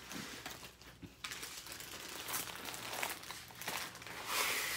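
Crinkling and rustling of plastic packaging as a rolled diamond painting canvas with its protective film is spread out and a bag of drill packets is handled, loudest near the end.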